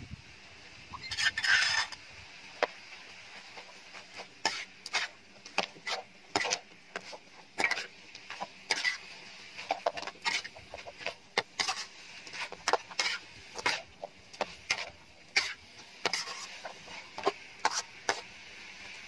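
Metal spatula scraping and clinking against a metal wok as chicken pieces and spice paste are stirred: irregular sharp scrapes, one or two a second, after a longer scraping burst about a second in.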